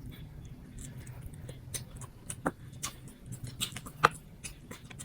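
Close-miked chewing of rice and braised pork ribs: irregular wet mouth clicks and smacks, a few sharper ones about two to four seconds in, over a faint low hum.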